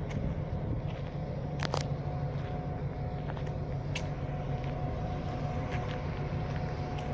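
Diesel locomotive engine idling with a steady low hum and a couple of faint steady tones above it, while footsteps crunch irregularly on a cobbled, gravelly path.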